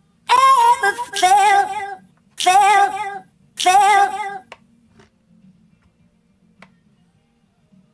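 Background music: a high melody in four short phrases, stopping after about four and a half seconds, then quiet apart from a faint low hum.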